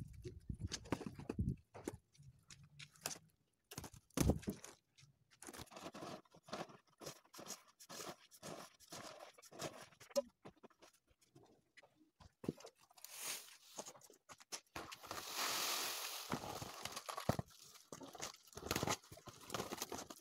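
Dry paddy grain rustling and crackling as it is scooped and poured, with the crinkle of a plastic tarpaulin and knocks of woven bamboo baskets being handled. The sound is irregular, with a longer rush of grain about three-quarters of the way through.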